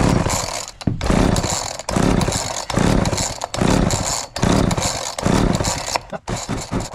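Homelite 240 two-stroke chainsaw being cranked with its recoil pull-starter, about one pull a second, each pull a short whirring turn-over of the engine. It never fires: the engine is not even hitting, which the owner puts down to the carburettor. Quicker rattling strokes come near the end.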